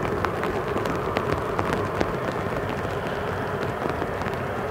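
Boeing 777-300 airliner's twin turbofan engines on final approach, a steady rushing roar, heard from the ground. Irregular sharp crackling clicks sound over it throughout.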